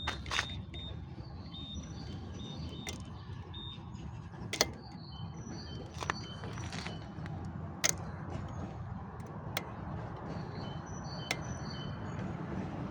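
Riding a bicycle: steady rolling and wind rumble with a sharp click from the bike about every one and a half to two seconds, regular like a once-per-revolution tick.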